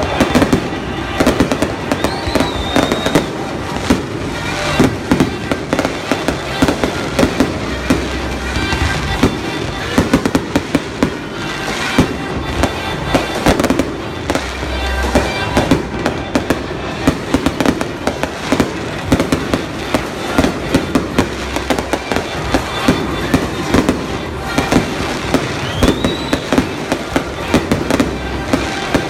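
Aerial fireworks display: a rapid, continuous string of bangs and crackles, with music playing underneath.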